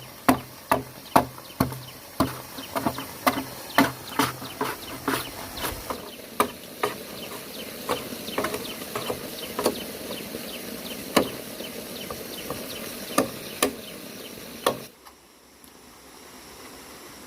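A hand tool striking wood or bamboo over and over: sharp knocks, about two a second at first, then more irregular. They stop abruptly about fifteen seconds in, leaving a faint steady hiss.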